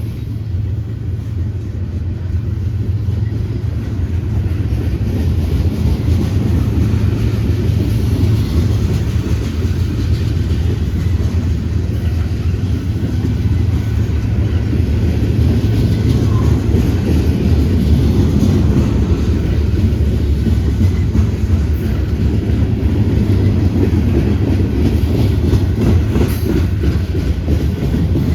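Long mixed freight train rolling past, its cars making a steady low rumble on the rails.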